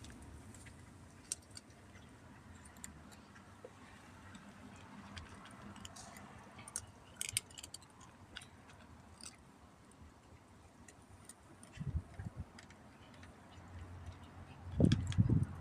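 A cat chewing and crunching her food, with scattered sharp crunchy clicks. A few louder low thumps come about twelve seconds in and again near the end.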